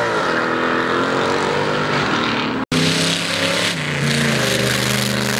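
Car engines revving as cars pull away, their pitch rising and falling. After an abrupt cut about two and a half seconds in, a hot rod's engine runs steadily as it drives past, its note stepping down about a second later.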